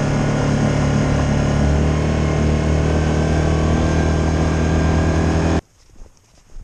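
A loud, steady engine hum holding one unchanging pitch, which cuts off abruptly a little over five seconds in. Footsteps in snow follow near the end.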